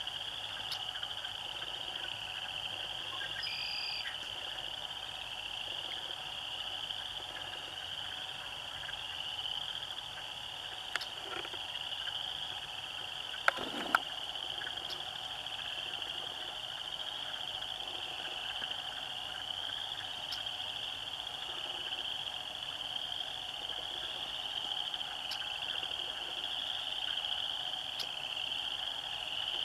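Pond frogs chorusing in a dense, steady, high-pitched trill, with two sharp clicks about halfway through.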